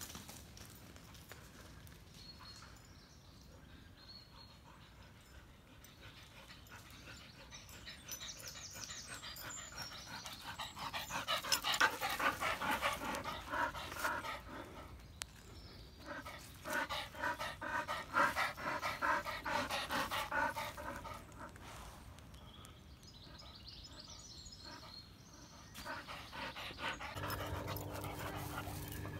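Spaniel panting fast and hard close by, in two long spells in the middle, with quieter breathing around them.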